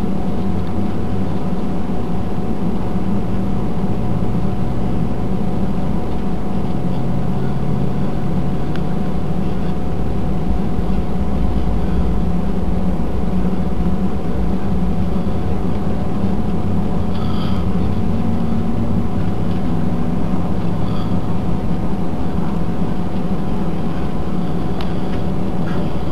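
Cabin noise inside an Airbus A319-111 on the ground: its CFM56 jet engines and the airframe give a steady, loud drone and rumble with a couple of fixed tones. A low hum rises slowly in pitch through the middle.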